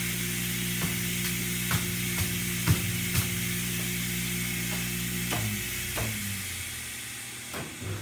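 The two 2.5-horsepower vacuum motors of a CNC vacuum hold-down table running with a steady hum, then winding down and stopping about five and a half seconds in as they are switched off. A few light knocks are scattered through it.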